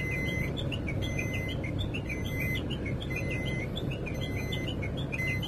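A car's reverse-gear warning beeper sounding a high beep of about half a second, repeating roughly once a second, with short high chirps between the beeps. The beeping means the car is in reverse and backing up, and the engine runs low underneath.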